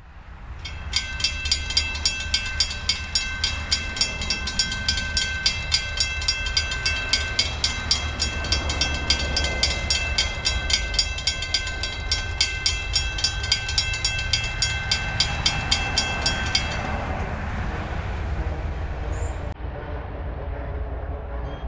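Railroad grade-crossing warning bell ringing steadily at about three strikes a second, signalling that the crossing is active for an approaching train, then stopping about seventeen seconds in. A steady low rumble runs underneath throughout.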